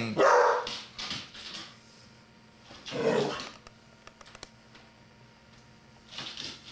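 Dalmatian barking: one bark right at the start, another about three seconds in and a weaker one near the end, with a few light clicks, like claws on a hard floor, in between.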